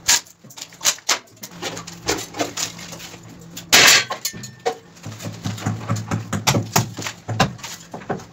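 Wall formwork being dismantled by hand: a string of sharp knocks and clinks as the clamps and clips are worked loose, with one louder crash about four seconds in.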